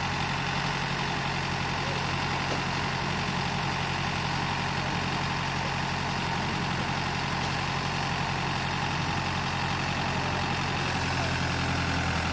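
Boom truck's engine running at a steady speed, powering the crane as it slowly hoists a load.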